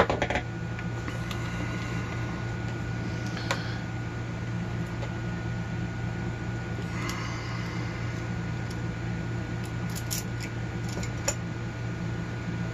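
Small metal parts and tools being handled while a padlock is taken apart: a sharp knock with a short rattle at the start, a click about 3.5 s in, a scrape about 7 s in, and light clicks around 10 to 11 s. A steady low hum runs underneath.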